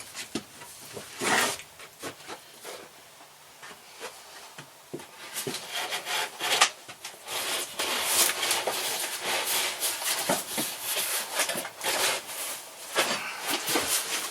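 A box being pulled down off a shelf and handled: scattered knocks and scrapes at first, then continuous rubbing, scraping and rustling with small knocks from about six seconds in.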